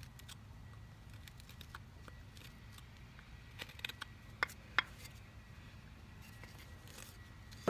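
Knife whittling a wooden spoon blank: scattered light scrapes and clicks as the blade cuts and shaves the wood, with a few sharper clicks about four to five seconds in.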